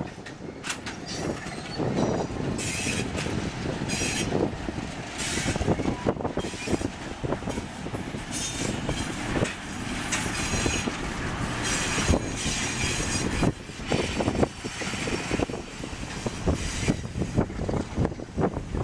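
Train rolling past, its steel wheels knocking and clattering over the rails, with several short high squeals from the wheels.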